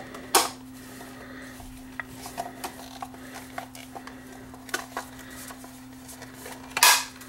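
Small metal pick prying and scraping at the seam of a glued plastic 8-track cartridge shell: scattered light clicks and scrapes, with a louder click just after the start and another near the end.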